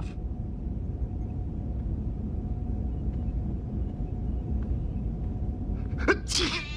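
Steady low ambient hum of a starship interior, a constant rumble under a faint held tone. About six seconds in, a sudden sharp sound is followed by a short pitched cry.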